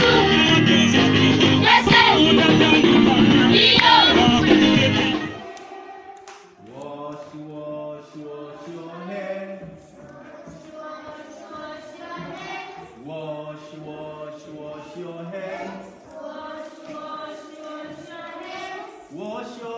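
A large crowd of students singing together loudly for about the first five seconds, then cutting off suddenly. Then a classroom of young children singing in unison, quieter, with long held notes.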